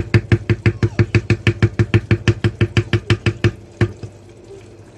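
Wooden spatula stirring spinach and potatoes fast in a clay handi as they fry, knocking and scraping against the clay about six times a second; the stirring stops about four seconds in.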